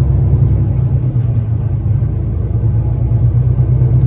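Diesel truck engine and road rumble heard from inside the cab of a car-transporter tractor unit while driving, a steady low drone.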